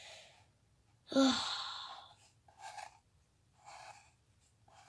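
A person's short breathy sigh about a second in, a brief voiced start trailing off into an exhaled hiss, followed by a few faint soft sounds.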